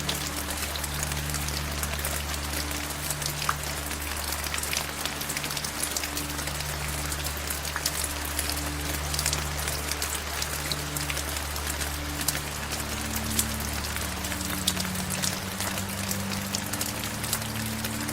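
Steady rain, an even hiss with many individual drops ticking through it. Soft, low held musical notes change slowly underneath.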